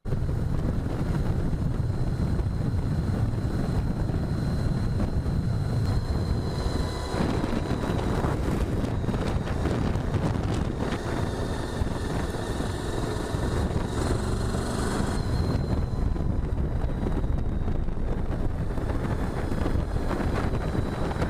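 Steady wind rush on the microphone with road and engine noise from a motorcycle riding at speed, under a faint high whine.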